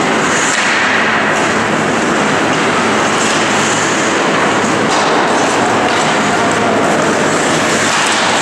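Steady loud noise of an ice hockey game in an indoor rink: skate blades scraping and hissing on the ice, over a constant low hum in the arena.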